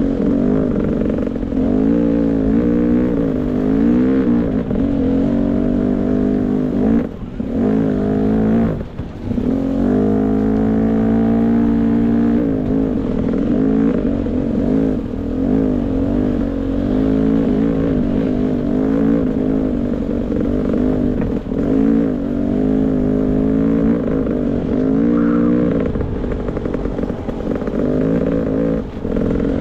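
Beta 300 RR two-stroke dirt bike engine being ridden on a trail, its revs rising and falling constantly with the throttle, and the throttle shut off briefly twice about a third of the way in.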